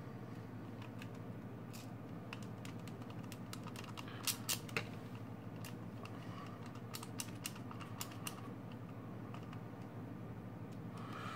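Screwdriver driving a small screw into the plastic housing of an electric salt and pepper mill while the plastic parts are handled. Scattered light clicks, with a quick run of louder clicks about four seconds in and more about seven to eight seconds in.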